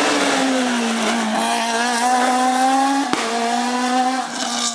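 Renault Clio S1600 rally car's 1.6-litre four-cylinder engine held at high revs, its pitch climbing slowly, with a sharp click about three seconds in, after which it carries on at a slightly lower pitch.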